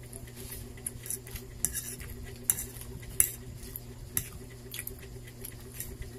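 Eating sounds: chewing a mouthful of stir-fried instant noodles (pancit canton) with wet mouth clicks, and a metal fork stirring and scooping through the noodles on a plate. A string of short sharp clicks, the loudest about three seconds in, over a steady low hum.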